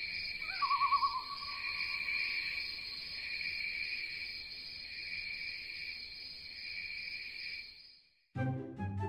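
Night-time cricket chorus, a steady high pulsing chirr, with a brief warbling call about half a second in that settles into a held note. The chorus cuts off shortly before the end, and another pitched sound starts just after.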